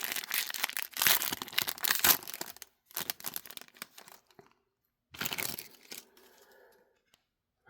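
Foil wrapper of a trading card pack being torn open and crinkled, a dense crackling for about two and a half seconds, then a few short rustles before it goes quiet.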